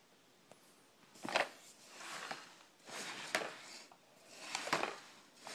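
Wooden remote-control caddy loaded with remotes being turned by hand on its spinning base: about four rubbing turns after a quiet first second, with knocks at some of them.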